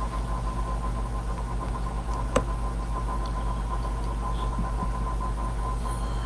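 Steady low background hum with a thin steady tone above it, and one short click a little over two seconds in.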